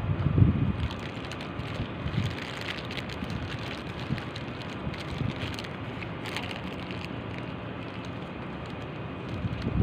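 Wind gusting on the microphone, louder at the very start and again near the end, over a steady outdoor hiss with faint scattered crackles.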